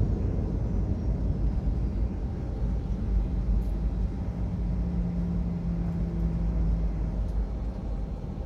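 Airliner cabin noise as the jet rolls along the ground after landing: a steady low rumble of engines and wheels that slowly eases as the plane slows. A steady hum joins about three seconds in and stops about a second and a half before the end.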